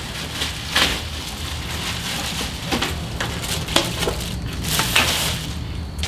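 Rustling and crinkling with scattered clicks and knocks as ceiling fan parts are handled, with a louder rustle about a second in and again near the end.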